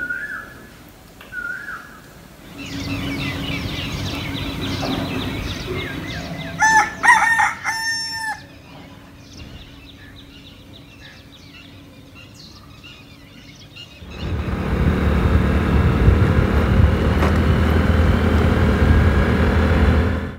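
Rooster crowing once, loudly, about seven seconds in, among the short repeated chirps of small birds at dawn. From about two-thirds of the way through, a loud steady rumble with a low hum takes over.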